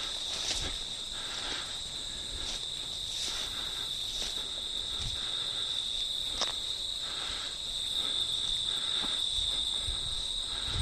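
Crickets chirring steadily in a high, unbroken band, with faint steps or rustles about once a second.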